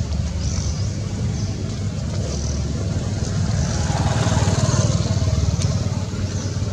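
Low rumble of a motor vehicle engine that swells louder for a couple of seconds midway, as if passing close, with faint high chirps above it.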